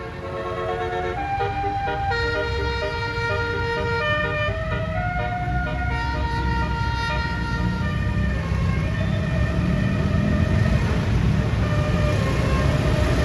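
Basuri telolet multi-tone air horn on a bus playing a melody of held notes that step up and down in pitch, over the low rumble of the bus engine. The horn stops about eight seconds in, and the engine and road noise grow louder.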